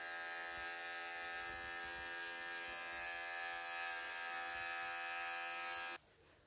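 Wahl electric pet clippers running with a steady buzzing hum, which cuts off suddenly near the end.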